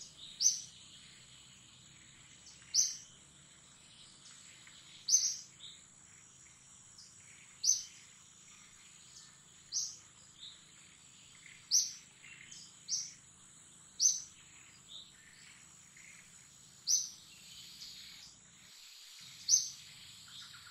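A bird repeating a short, sharp, high chirp about every two seconds, with a steady high insect whine underneath.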